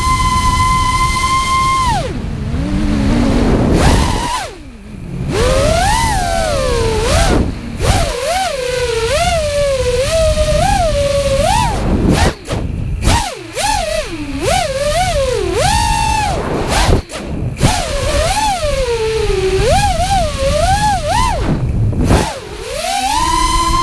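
FPV racing quadcopter's brushless motors and propellers, heard from the onboard GoPro: a whine that rises and falls quickly with the throttle, dropping out briefly three times, over a low rush of air.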